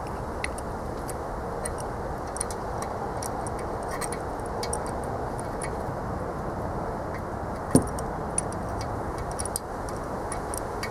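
Light metallic clicks and ticks of small parts and hand tools being handled while a small plug is fitted into a small block Chevy engine block, with one sharper knock about eight seconds in, over a steady background noise.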